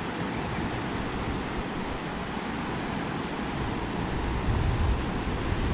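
Shallow sea surf washing and rushing around a GoPro held at water level, with wind buffeting the microphone. A low rumble swells about four seconds in as a wave passes.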